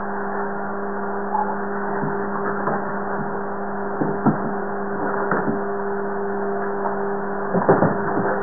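A steady low electric hum, with scattered knocks and scuffles from a French bulldog puppy scrambling over a hardwood floor and tussling with a towel; the loudest cluster of knocks comes near the end.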